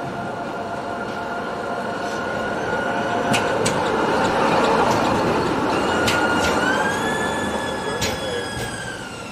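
Tatra KT4D articulated tram passing close by: rolling noise that builds to a peak mid-way and fades, with a few sharp clicks from the wheels and a high steady whine that rises in pitch in the second half.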